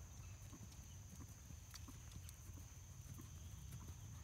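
Faint, muffled hoofbeats of a horse cantering on arena sand, over a steady low rumble and a thin high tone.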